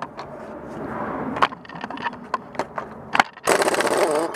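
Scattered tool clicks, then near the end a loud burst of about a second from an air impact gun hammering on the crankshaft pulley bolt to break it loose.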